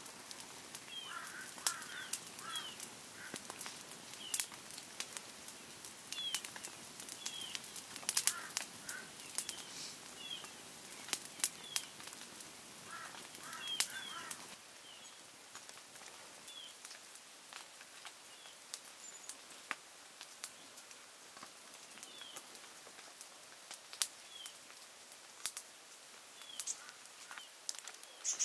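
Small birds chirping, short high chirps repeating every second or two, with a scatter of sharp faint clicks.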